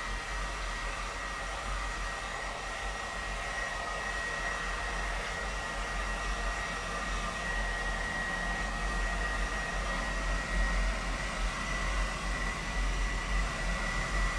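Handheld hair dryer running steadily while blow-drying hair: a continuous rush of air with a steady high motor whine, getting a little louder toward the end.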